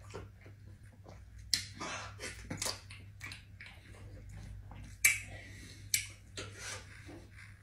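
Close-up eating noises: chewing and wet lip smacks while eating fufu and roast meat with the fingers, as a string of short sharp clicks and smacks, the two loudest about five and six seconds in, over a steady low hum.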